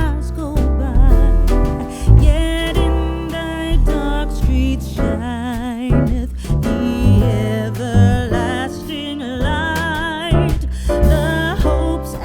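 Background music: a song with a singing voice over guitar, bass and a steady beat.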